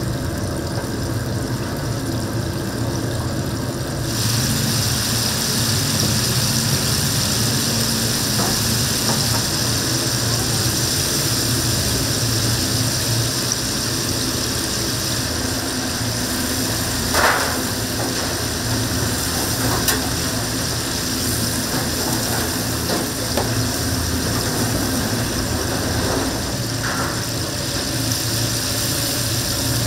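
Battered chicken deep-frying in a vat of hot oil: a steady sizzling hiss sets in about four seconds in, over a constant low machine hum. A couple of brief knocks are heard, one about halfway through and one near the end.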